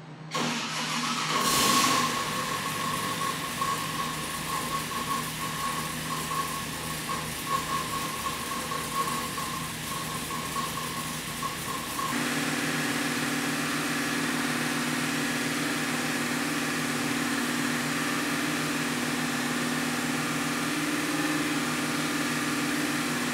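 Freshly built 427 cubic-inch LS V8 on an engine dyno, running naturally aspirated, starting up and idling as it warms up before break-in. A louder burst comes about a second and a half in. About twelve seconds in the sound steps up to a steadier, slightly louder idle.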